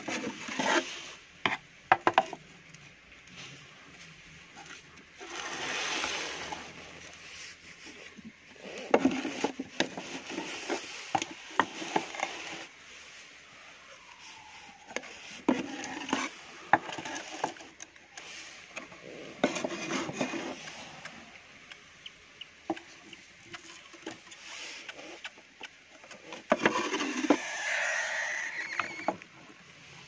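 Small wooden cabinet drawers being slid open and shut by hand, with repeated sharp knocks and clacks and stretches of scraping as they run in and out.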